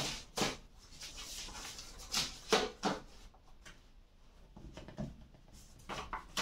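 Sheets of paper being handled and turned over on a table: a series of short rustles, several close together a couple of seconds in and more near the end.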